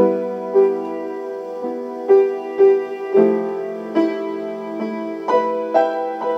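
Slow, gentle piano melody: single notes struck one or two a second over held lower notes.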